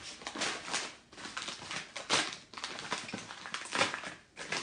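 Packaging rustling and crinkling as a gift hamper is unpacked by hand, in irregular bursts with the loudest crinkles about two and four seconds in.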